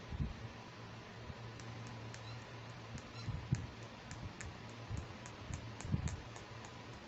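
Fingers handling a small plastic toy spoon: a run of quick, light clicks, about four a second, with a few soft bumps from the handling.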